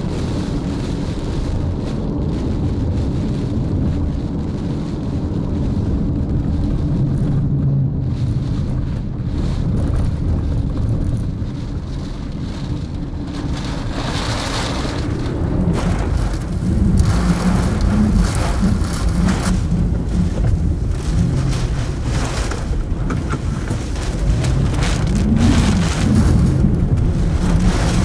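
Thunderstorm sounds: rain and gusting wind with rumbling thunder, a dense low rumble that grows louder about halfway through.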